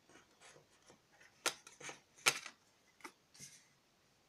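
Oracle cards being handled and a card drawn from the deck: a few short, sharp card snaps with softer sliding rubs between them, the two loudest snaps about one and a half and two and a quarter seconds in.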